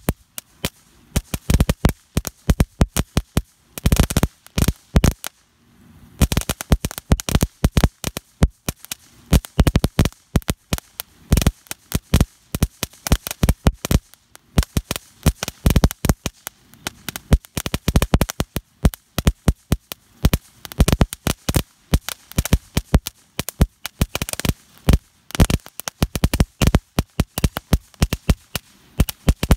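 Red Rhino Junebug novelty firework burning, setting off a rapid, irregular stream of sharp pops and crackles like miniature firecrackers, broken by a few brief lulls.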